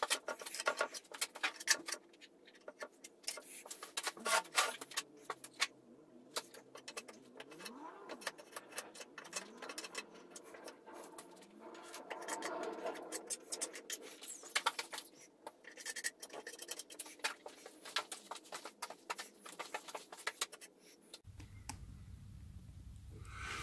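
Scattered light clicks, taps and scrapes of wood and small objects being handled on a workbench. A faint steady low hum comes in near the end.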